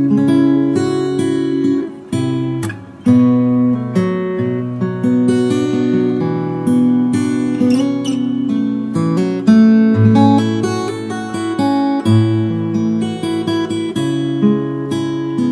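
Acoustic guitar music: plucked and strummed notes on a nylon-string violão, played as a slow relaxing piece.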